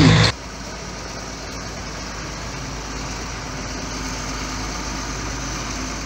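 A single-drum road roller's diesel engine running steadily.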